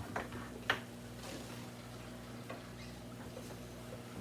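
A few light clicks and taps of a seasoning container and utensil at a pan of browning ground beef, over a steady low hum. Two taps come close together near the start, and a fainter one follows about halfway through.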